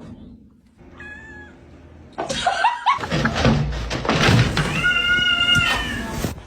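A cat meowing: a short faint meow about a second in, then louder calls over noise, ending in a long drawn-out yowl near the end.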